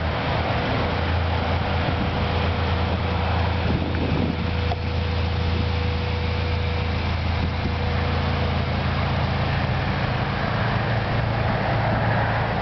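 Wind on the microphone over the steady low hum of an idling vehicle engine, with a faint thin tone that stops about two thirds of the way through.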